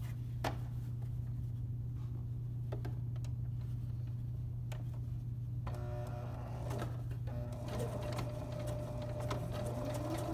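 Domestic electric sewing machine stitching a seam: the motor runs steadily with a few clicks, and its whine comes in stronger about halfway through.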